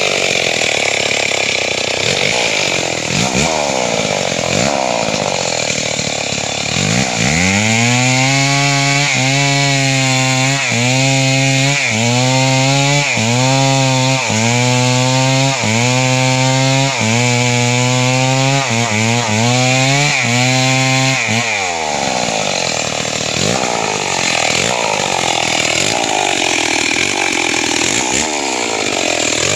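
Chainsaw engine running: its pitch rises and falls at first, then holds a steady high note under load from about seven seconds in to about twenty-one seconds, dipping briefly about once a second as it cuts into a tree, before dropping back to uneven revving.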